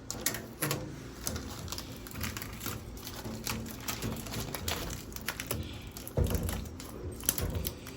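Fingernail scratching and picking at leftover bits of blue protective plastic film on a microwave's stainless steel surface, making irregular small clicks and scrapes.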